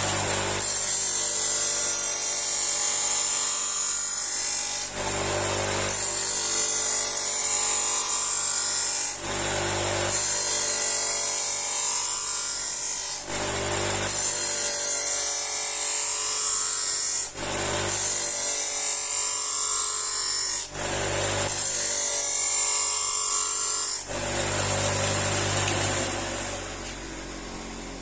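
Full-speed bench grinder fitted with a silicon-carbide gritted paper wheel, running steadily while a knife edge is drawn across the dry, unwaxed wheel in about six passes. Each pass is a loud, hissing grind of about three seconds with a short break before the next. Ground without wax like this, the edge overheats.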